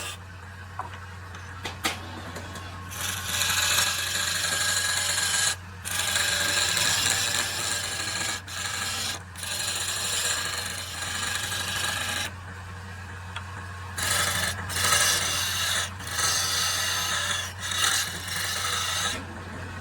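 Wood being worked with an abrasive tool: long spells of rough scraping with short breaks between them, over a steady low hum.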